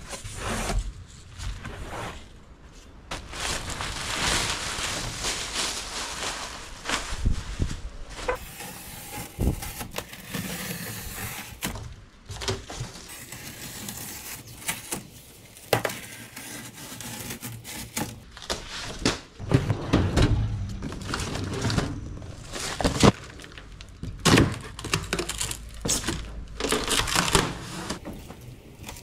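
Unpacking a metal rolling tool cart: plastic wrapping rustling and crinkling and cardboard scraping, then a run of irregular knocks and thumps in the second half as the cabinet and its parts are handled and set down.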